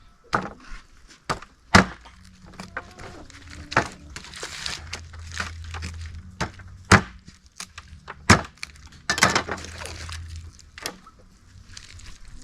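Knife chopping through a roasted chicken, with about six sharp, irregularly spaced blows against the board and crunching of the meat and bone between them.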